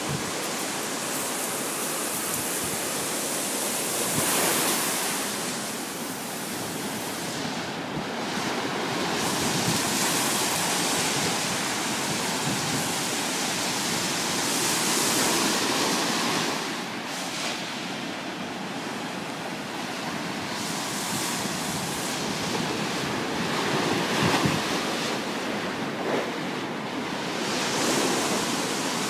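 Sea surf breaking and washing up a sandy beach, swelling and easing every few seconds.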